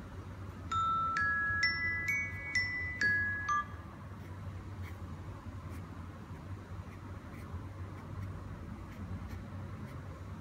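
A short chime melody of about seven clear, bell-like notes, rising then falling over about three seconds, over a steady low hum; after it only the hum remains, with faint ticks.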